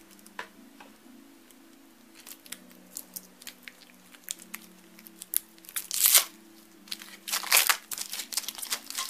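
Plastic packaging being crinkled and torn by hand: scattered sharp crackles starting about two seconds in, with louder crinkling bursts around six seconds and again a little after seven seconds.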